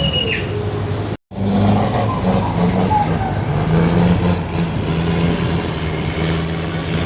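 A river boat's engine running steadily with a low hum and a faint high whine. It comes in after an abrupt cut about a second in, which ends a short high whistle tone.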